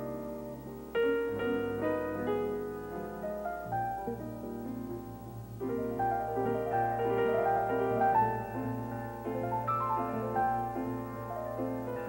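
Grand piano played jazz, a flowing stream of chords and melodic runs, with heavier chords struck about a second in and again near six seconds in.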